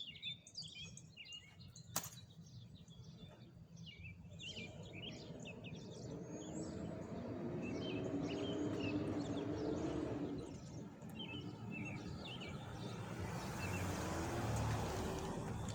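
Small birds chirping and twittering, with a sharp click about two seconds in. A broad rushing noise swells up and fades in the middle, then rises again near the end.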